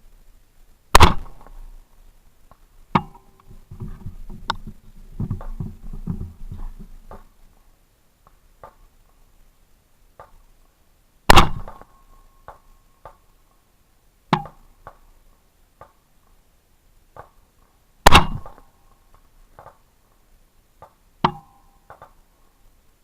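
AR-15 rifle firing 5.56/.223: three loud single shots, about 10 and then 7 seconds apart. Fainter sharp cracks fall between them, and a stretch of clattering handling noise follows the first shot.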